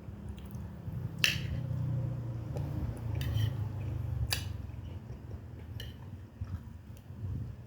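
A person chewing food close to the microphone, a low wet rhythmic mouth sound, with a few sharp clicks, the loudest about a second in.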